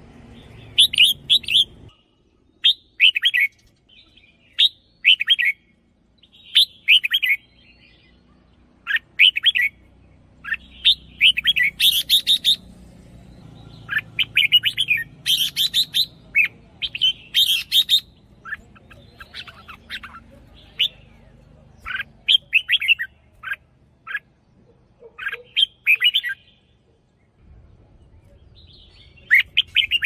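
Red-whiskered bulbul singing: short, bright, warbled phrases repeated every second or two, coming in a dense run in the middle and pausing briefly near the end.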